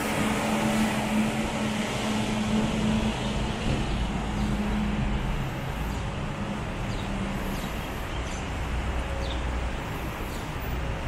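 Steady rumble and hiss of city vehicles, with a low steady hum that fades out about halfway through and a deeper rumble growing in the second half.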